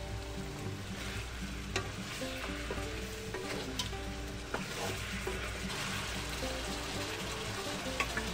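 Chicken adobo sizzling as it simmers in its soy-vinegar sauce in a nonstick frying pan, with a wooden spoon stirring the pieces and knocking against the pan a few times. Background music plays underneath.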